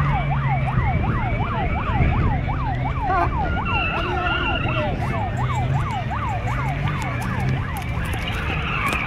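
Fire engine siren sounding a fast yelp, its pitch sweeping up and down about two and a half times a second, fading out near the end. A steady low hum lies beneath it.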